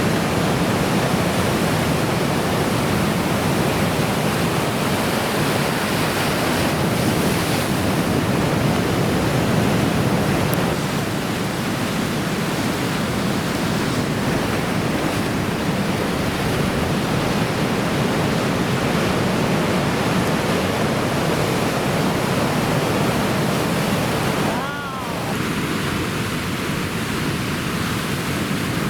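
Heavy typhoon surf breaking and washing in, a steady wall of wave noise, with a brief dip about 25 seconds in.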